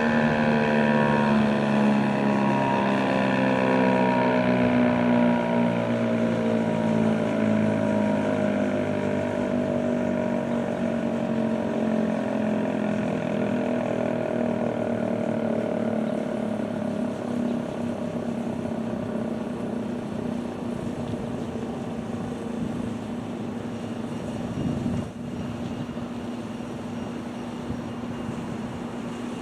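Werden P-127 warning siren winding down after its test: its multi-toned wail slides slowly down in pitch and fades over about twenty seconds, with a steady low hum underneath.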